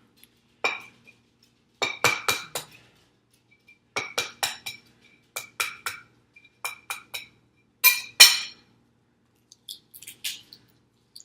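A ringing dish being knocked by hard objects: about a dozen sharp clinks in irregular clusters, the dish ringing briefly after each. The loudest pair comes about eight seconds in.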